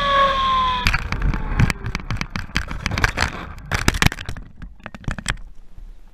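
Radio-controlled model airplane's motor whine falling away as it touches down. About a second in comes a rapid, irregular clatter of knocks and scrapes lasting some four seconds as the plane bounces and skids along the pavement and flips over onto its back. The clatter stops abruptly near the end.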